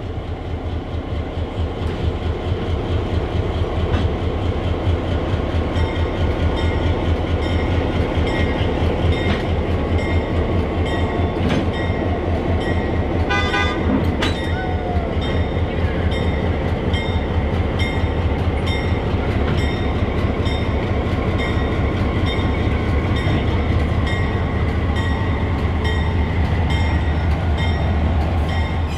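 Passenger coaches and an EMD GP9RM diesel locomotive rolling past at low speed, with the diesel engine's steady low rumble and the wheels clattering over the rails. A bell dings at a steady rate over the train noise.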